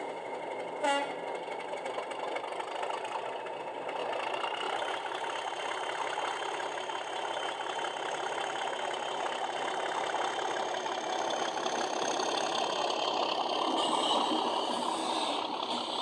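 DCC sound decoder in a model Class 37 diesel locomotive playing its English Electric engine sound through the model's small speaker, the engine note building with a high whistle above it as the locomotive draws its coaches past. A short, sharp sound comes about a second in.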